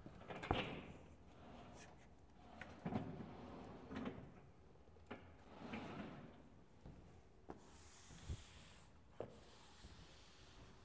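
Sliding blackboard panels pushed up in their frame, giving a few knocks and rubbing scrapes over the first several seconds. Near the end there is a light hiss of chalk writing on the board.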